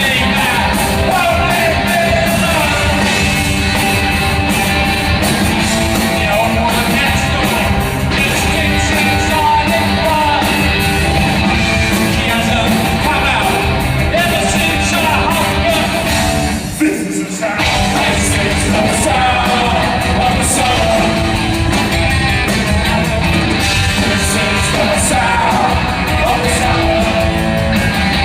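Punk rock band playing live and loud: distorted electric guitars, bass and drums with a shouted lead vocal. The band breaks off for a split second about two-thirds of the way through, then comes straight back in.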